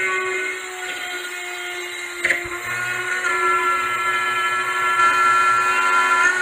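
Spiral-bit rotary cutout tool running at high speed while cutting through half-inch drywall in a ceiling; its steady whine changes pitch a couple of times as the cut goes on. A sharp knock about two seconds in.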